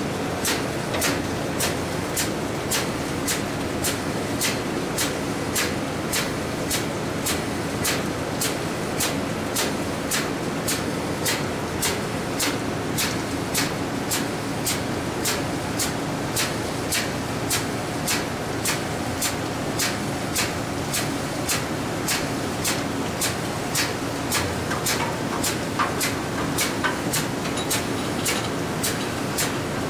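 Steady engine-room machinery noise aboard a container ship, with a sharp mechanical tick repeating evenly about twice a second.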